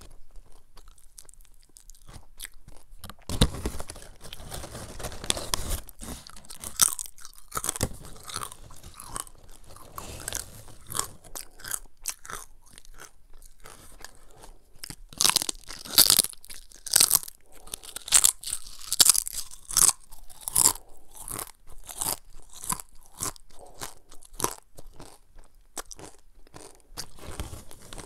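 A person biting and chewing crunchy cassava chips (Artisan Tropic sea-salt cassava strips), a run of sharp crunches that is loudest and densest a little past halfway through.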